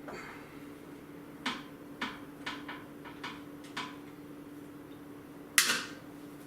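Hands handling parts inside a desktop computer case: a run of small clicks and taps, then one louder knock about five and a half seconds in, over a faint steady hum.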